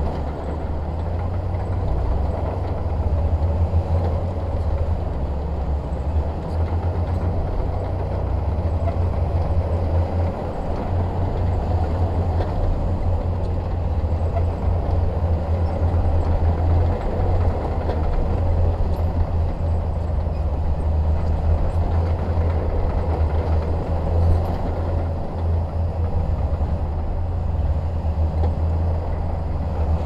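Heavy diesel earthmoving machinery running steadily: a continuous low engine drone with a rough mid-range noise and no clear changes in speed.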